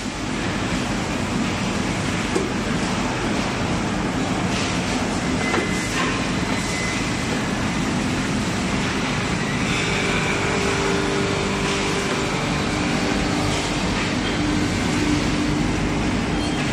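CNC brake lining inner arc grinding machine running: a steady mechanical rumble and hum, with a few light clicks and a steady higher tone that joins about ten seconds in.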